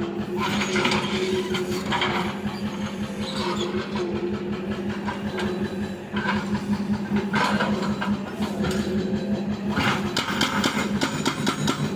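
Excavator engine running steadily, with recurring bursts of hiss over it and rapid metallic clattering that grows denser near the end.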